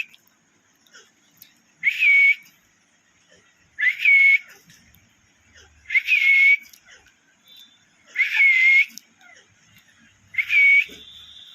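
A pet parrot whistling a short call five times, about every two seconds; each note rises quickly and then holds.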